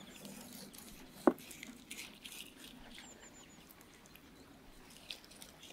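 Kitchen knife slicing through the skin and flesh of a large catfish, giving faint crackling, ticking cuts, with one sharp click about a second in.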